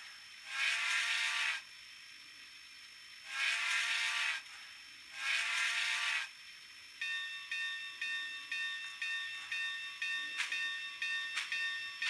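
Sound system of a Bachmann Spectrum 4-8-2 Mountain model steam locomotive: three whistle blasts of about a second each. From about seven seconds in, a bell rings about twice a second.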